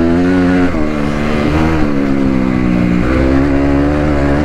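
Dirt bike engine running hard under the rider, its pitch falling and climbing again several times with the throttle, on a clutch the rider says is slipping all lap.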